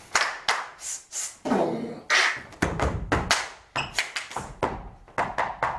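An irregular run of thumps, knocks and taps, with short breathy, voice-like noises between them, as performers move and stamp about a stage.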